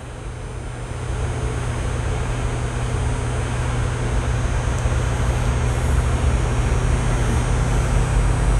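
A steady blowing machine noise with a low hum, swelling over the first second and then holding level.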